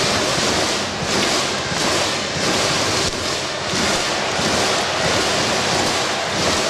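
Large baseball stadium crowd cheering, a steady roar that swells and eases every second or so.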